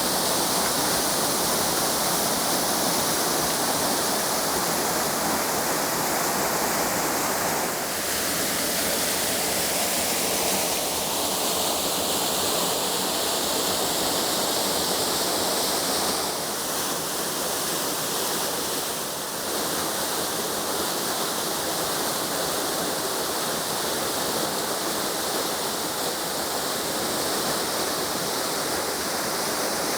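Steady rush of a waterfall, water falling over rock without a break, shifting slightly in tone a few times.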